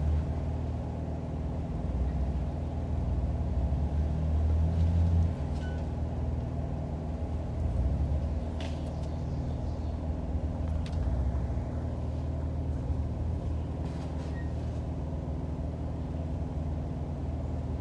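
Jeep Wrangler engine running at low revs while rock crawling over a ledge, rising in several short bursts of throttle, with a couple of sharp knocks as the rig works over the rock.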